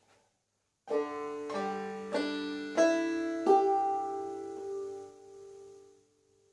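Five-string banjo with a tubaphone tone ring, tuned gDGDE: five notes plucked one after another about a second in, then left to ring and die away.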